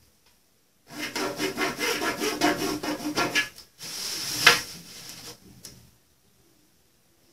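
Cotton tricoline fabric being cut across its width: a fast, rasping crackle of many quick strokes for about two and a half seconds. Then a shorter rasping sweep of the fabric being handled on the table, loudest about four and a half seconds in.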